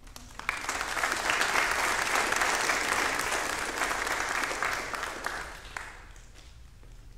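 Congregation applauding. The clapping starts about half a second in, holds strongly for a few seconds, and dies away about six seconds in.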